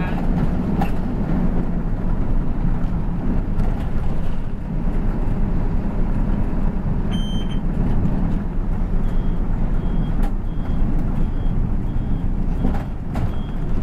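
Inside a moving city bus: steady engine and road rumble with a few light rattles. A single short electronic beep about seven seconds in, then a high beep repeating a bit under twice a second from about nine seconds on.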